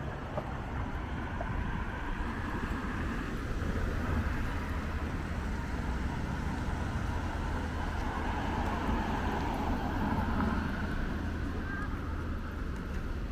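Steady street traffic: the low rumble of vehicle engines and passing cars, swelling for a few seconds about two-thirds of the way in.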